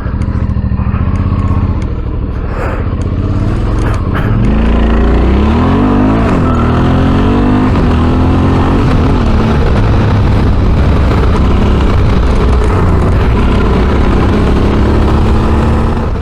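Suzuki V-Strom 650's V-twin engine with a Delkevic exhaust running as the motorcycle is ridden. The revs rise and fall through gear changes about four to nine seconds in, then the engine holds a steady pull.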